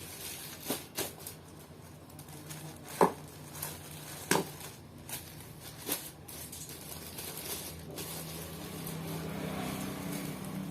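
Scattered sharp clicks and taps of small hard objects being handled, over a steady low hum; the loudest click comes about three seconds in.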